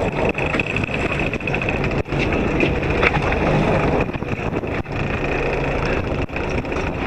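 Fishing boat's engine running steadily, with wind noise on the microphone.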